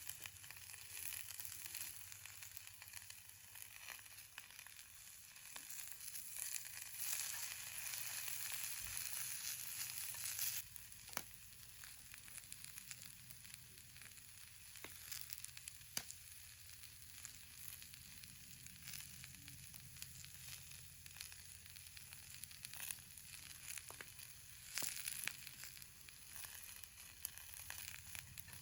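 Food frying with a steady sizzle and scattered sharp pops; the sizzle is louder for a few seconds near the middle, then drops suddenly.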